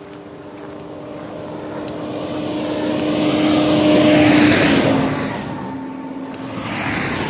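Tractor-trailer going past close by. Its engine hum and road noise swell to a peak about four seconds in, then fade as the hum drops in pitch.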